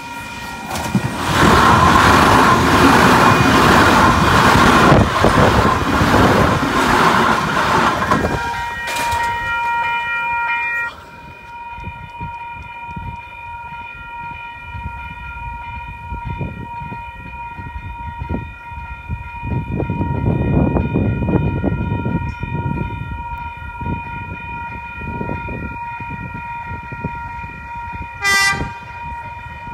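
Electric passenger train passing close through a level crossing at speed, loud for about eight seconds and then fading. Level crossing warning bells ring steadily, and near the end an approaching train gives a short horn toot.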